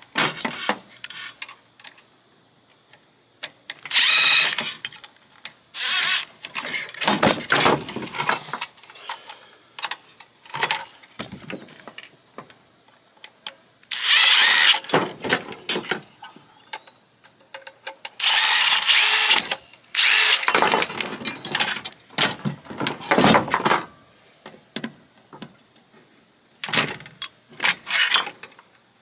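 Power drill run in short bursts of a second or two, several times, with clicks and knocks of metal parts between them, as an oscilloscope is taken apart. Crickets chirp steadily throughout.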